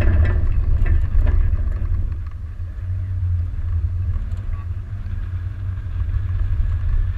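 Land Rover Discovery 2 driving along a rough dirt trail: a steady low rumble of engine and tyres, heard from a camera on the hood, with a few light knocks near the start.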